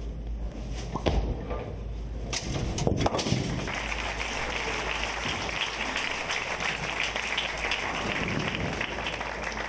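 A bowling ball hits the last standing pin for a spare, a short clatter of impacts about two and a half seconds in. Then the crowd and teammates applaud for several seconds.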